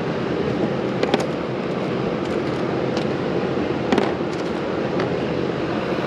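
Scattered sharp clinks of hand tools on the front-suspension bolts, about five in a few seconds, the loudest about a second in and near four seconds, over a steady background noise.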